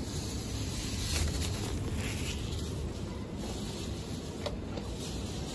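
Steady low background hum of a supermarket, with a few faint light clicks or rustles.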